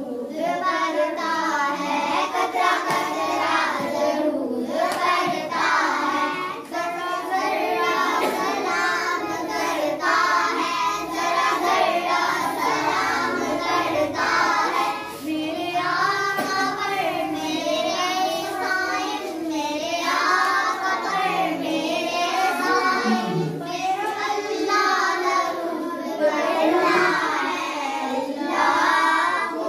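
A group of children singing a naat, an Urdu devotional hymn, together in steady, continuous chant-like melody.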